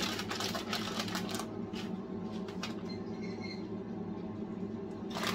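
Crinkling and rustling of a plastic bag of grated mozzarella, dense for the first second and a half, then softer scattered rustles as the cheese is sprinkled by hand onto bread in a ceramic ramekin, over a steady low hum.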